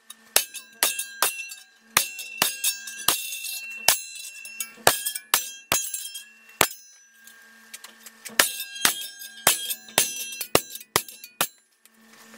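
Steel bar striking and levering the teeth of a circular saw blade clamped in a bench vise, knocking some teeth down and pushing others up to set them. Irregular sharp metallic clanks, each followed by the blade ringing, with a short pause about two-thirds of the way through.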